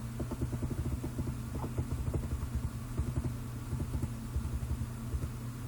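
Steady low electrical hum with many irregular soft taps and knocks, from a computer mouse being moved and clicked on a desk while a setting is adjusted.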